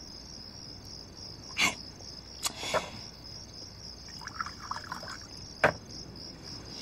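Crickets chirping steadily in a night garden, with a few sharp clinks and knocks of glasses and drink cans being handled on a table, four strokes in all, and a short run of small clinks about four seconds in.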